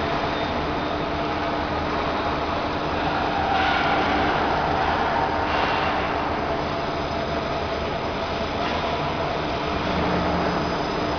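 Chicken feed press machine running steadily, a continuous mechanical drone with a steady hum running through it, swelling slightly a few seconds in.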